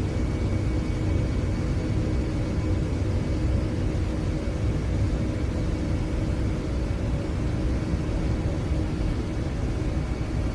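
Four turbofan engines of a C-17 Globemaster III running steadily: a deep, even rumble with faint steady whining tones above it.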